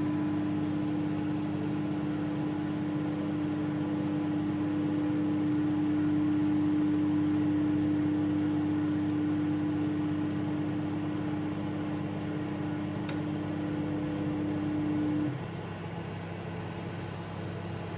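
Microwave oven running with a steady electrical hum. About fifteen seconds in, the loudest part of the hum cuts off abruptly, leaving a quieter steady hum.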